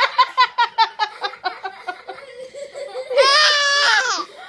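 Baby laughing in a quick run of pulses, about five a second, then a long high-pitched squeal about three seconds in that falls away at its end.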